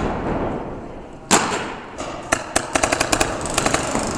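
Paintball markers firing: one loud shot about a second in, then a quick string of shots near the end.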